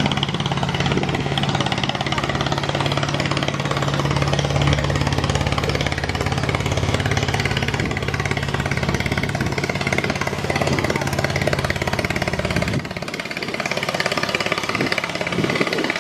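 Heavy diesel engine of a river passenger launch running, with a fast, even knocking over a steady low hum. The hum drops out about thirteen seconds in and the sound gets slightly quieter, leaving the knocking.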